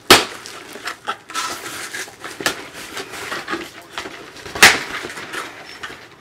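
A knife cutting packing tape and cardboard on a shipping box, with crackling and rustling of the cardboard and many small scrapes and clicks. Two sharper, louder sounds come at the very start and about four and a half seconds in.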